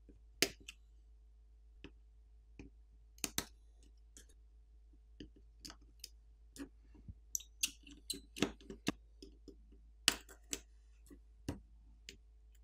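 Irregular light clicks and taps of small hand tools, a plastic pry tool and a small screwdriver, working on the opened Tecno Phantom X2 Pro smartphone's internals at its flex-cable connectors and sub-board.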